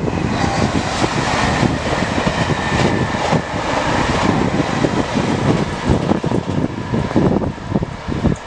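Passenger train passing on a double-track main line, its coaches' wheels running over the rails in a steady loud rush that thins out as the last coach goes by near the end. Wind buffets the microphone.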